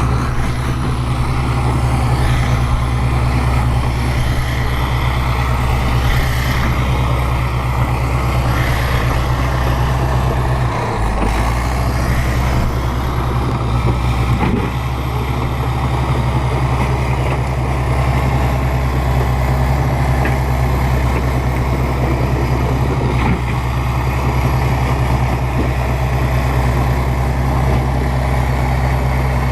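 Bulldozer's diesel engine running steadily with a deep drone, its low tone shifting briefly about eleven seconds in.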